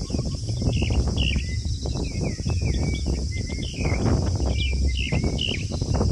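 Small birds chirping in short, repeated rising and falling calls, over a steady low rumble and hiss.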